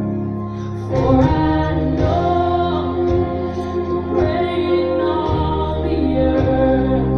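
Gospel song with female singing over instrumental backing; the music swells with fuller bass and voices about a second in.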